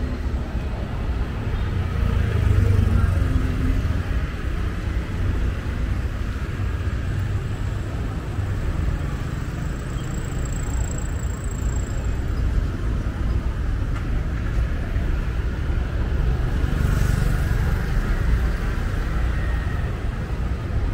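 Road traffic: cars, motorbikes and auto-rickshaws driving past, a steady low rumble of engines and tyres.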